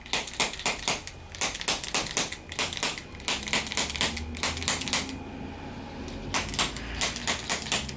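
Handheld chiropractic adjusting instrument firing a rapid run of sharp clicks, several a second. The clicks pause about five seconds in and start again a second or so later.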